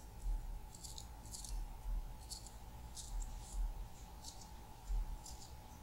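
Small knife slicing through a cherry tomato held in the hand: short crisp clicks about twice a second as the blade cuts the skin and the pieces drop away.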